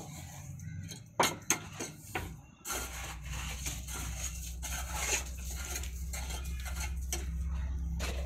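A thin metal rod clinking and scraping against freshly cast metal pieces in a mould: a few sharp clinks in the first couple of seconds, then continuous scraping. A steady low hum comes in about two and a half seconds in.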